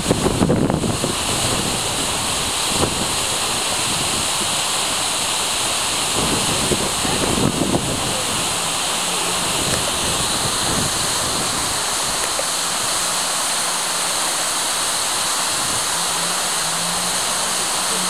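A 55-metre waterfall roaring steadily as it pours down a rock face. Wind buffets the microphone briefly in the first second and again about seven to eight seconds in.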